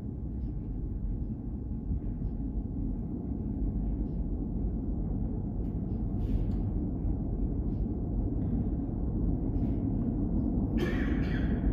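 R160 subway train running with a steady low rumble that builds gradually, and a short high-pitched sound near the end.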